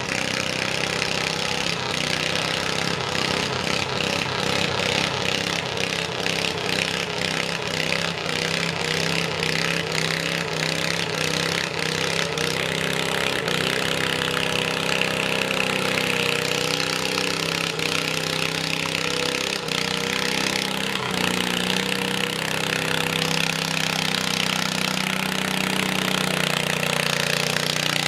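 International Harvester garden tractor's engine running hard and steadily under load as it drags a weight-transfer pulling sled.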